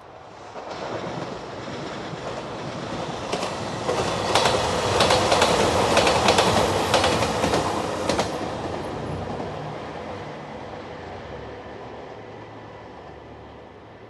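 JR Shikoku 2700 series diesel limited-express train passing. It builds up, peaks for a few seconds in the middle with rapid clicking of wheels over rail joints, then fades away as it goes by.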